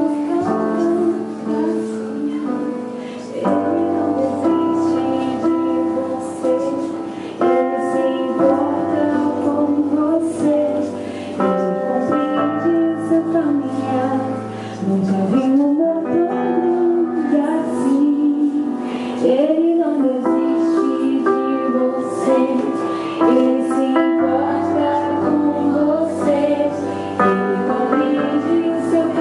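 Music with a female singing voice over sustained keyboard chords.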